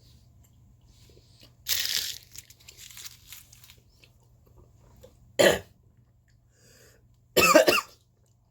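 A man coughing hard in three bouts: a long one about two seconds in with some rasping after, a short sharp one midway, and a harsh, throaty one near the end. He is choking on something that went down the wrong pipe.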